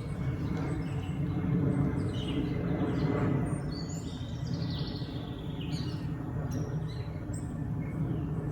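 Several songbirds chirping and calling in quick, overlapping short notes, many of them falling in pitch, over a steady low background rumble.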